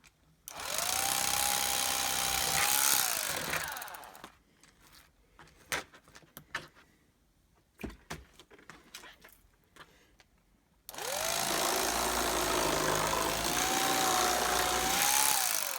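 Small handheld electric motor tool running in two bursts of about three and five seconds, its whine rising as it starts and falling off as it stops, with a few clicks and knocks in the quiet between.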